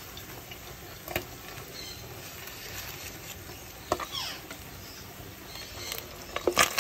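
Whitefish frying in hot oil in a deep pot, a steady crackle with a few light clicks. Near the end, tongs knock against the pot several times as a piece is turned in the oil.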